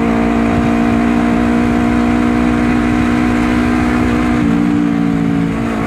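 Honda CBR250RR parallel-twin engine running through a 3Tech EvoX X3NRC aftermarket exhaust at steady revs while riding, a smooth, bassy drone that holds one pitch.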